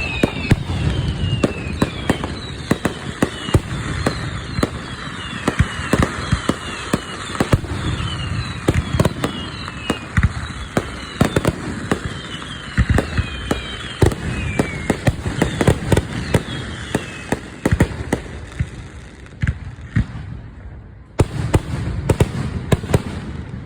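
Fireworks going off: a rapid, irregular string of sharp cracks and bangs, easing briefly near the end before a last cluster of pops. Many short high whistles falling in pitch run alongside the cracks for most of the time.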